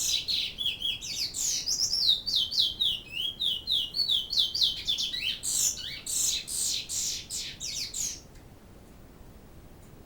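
Pet bird singing a fast, continuous run of high chirps and short downward-sweeping whistled notes, stopping about eight seconds in.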